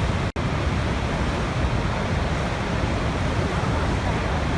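Niagara Falls' water rushing, a steady, heavy noise weighted toward deep rumble, which drops out for an instant about a third of a second in.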